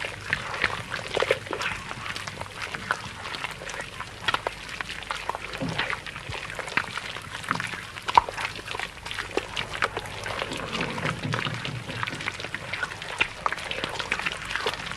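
Monster sound effects of Gezora, the giant cuttlefish kaiju: a dense, irregular run of short squeaky chirps and clicks, with a few lower groans mixed in.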